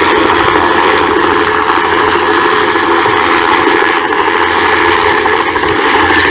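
Light turbine helicopter hovering close by: a loud, steady run of turbine whine and rotor noise.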